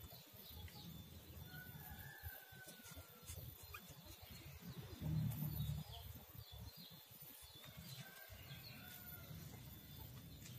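Faint bird calls, a few short falling notes, over a low rumble that swells briefly about five seconds in.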